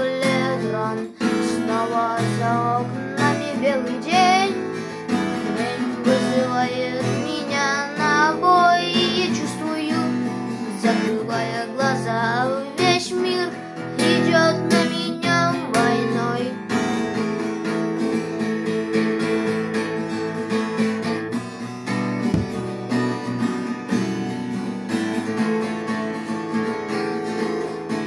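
Acoustic guitar strumming chords in a wordless instrumental stretch of a song, with a wavering melody line over the chords for roughly the first half.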